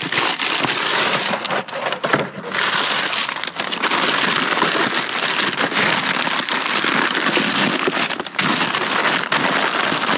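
Plastic bags and food packaging rustling and crinkling as they are handled and rummaged through, a dense crackle dotted with small clicks and knocks.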